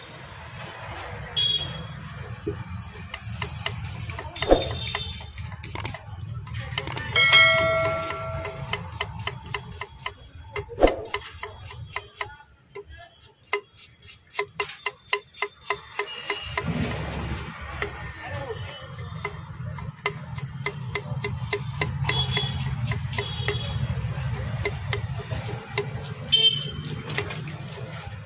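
Kitchen knife rapidly chopping onion on a wooden board, a quick even run of taps at about four to five a second. Behind it is a low street rumble, and a short pitched tone sounds about a quarter of the way in.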